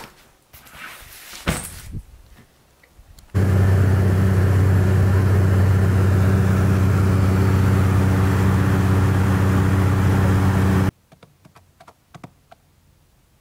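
Rustling and rummaging through cloth and loose items. About three seconds in, a loud, steady aircraft cabin drone cuts in: a low engine hum under a wide hiss. It stops abruptly after about seven seconds, leaving a few faint soft clicks.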